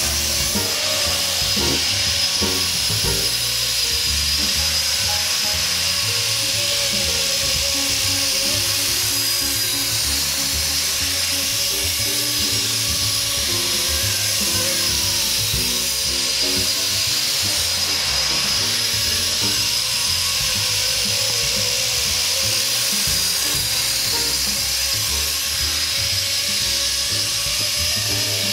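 Blade SR electric radio-controlled helicopter in flight: its motor and rotors make a steady high whine that holds at an even pitch. Music plays underneath.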